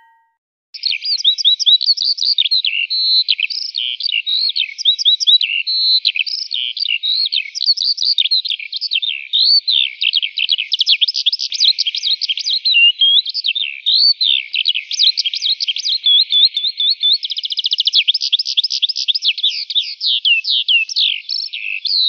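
A small songbird singing a long, rapid, twittering song of high whistled sweeps and trills. It starts about a second in and goes on without a break, with a fast, even trill about two-thirds of the way through.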